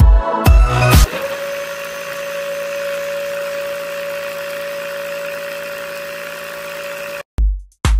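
Dance music with a heavy kick-drum beat for about a second. Then the small DC motor of a model borewell drilling rig runs steadily with a constant whine, turning the drill rod. It cuts off suddenly near the end, and the beat comes back.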